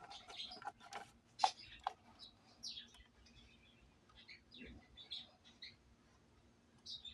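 Small birds chirping in short calls, with a few sharp clicks in the first two seconds and a faint steady low hum underneath.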